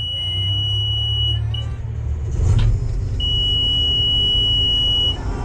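Combine engine running with a steady low rumble, while a high-pitched warning beeper in the cab sounds twice, each tone held for about two seconds.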